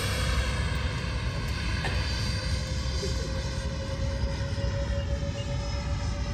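Twin 80 mm electric ducted fans of a Freewing MiG-29 Fulcrum RC jet whining in flight overhead: a steady whine of several stacked tones over a low rumble.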